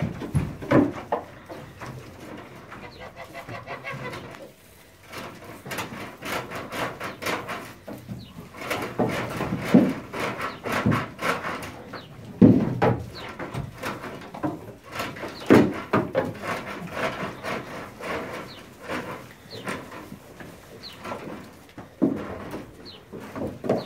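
Goats moving about a wooden barn: hooves knocking and scraping on boards and steps, with low cooing calls now and then.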